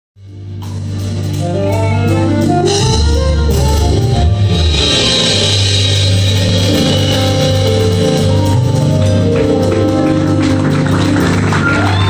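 Instrumental band music fading in over the first second or so: a steady bass line and drums with regular cymbal ticks under a moving melody, without vocals.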